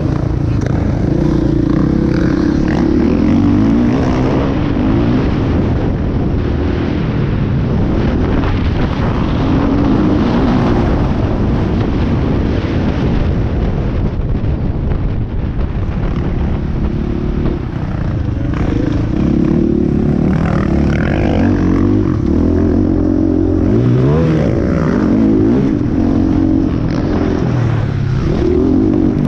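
Dirt bike engine heard from on board while racing on a motocross track, revving up and dropping back again and again as the rider accelerates out of turns and shifts gears.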